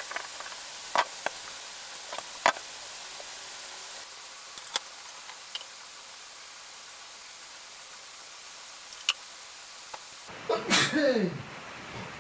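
Scattered light knocks and taps of hands, wood and tools on a workbench over a steady room hiss, then about ten seconds in a short loud burst with a falling pitch, like a person sneezing.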